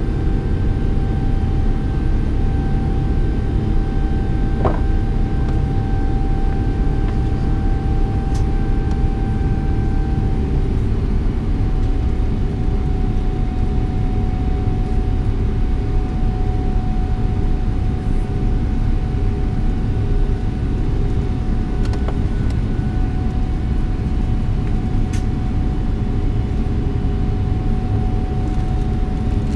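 Steady jet-engine and airflow rumble heard inside the cabin of a Boeing 777-300ER, with a thin steady hum over it. The hum drops slightly in pitch about ten seconds in.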